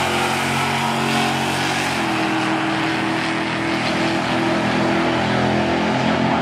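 Drag-strip cars running hard down the quarter mile, a loud steady engine note that changes pitch about two seconds in.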